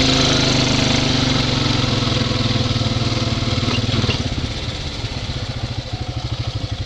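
Off-road vehicle engine running at a steady throttle while riding. About four seconds in it eases off and runs lower and more unevenly.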